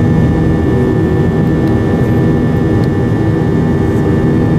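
Airliner engines heard inside the cabin during the climb after take-off: a steady, loud drone over a deep rumble, with several steady hum tones running through it.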